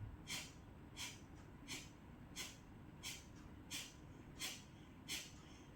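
Kapalbhati pranayama breathing: short, forceful exhalations through the nose, eight evenly spaced sharp puffs coming a little faster than one a second.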